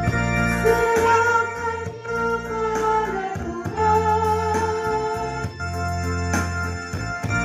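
Small mixed choir singing from song sheets over an organ-like electronic keyboard accompaniment, with held notes and chord changes every couple of seconds.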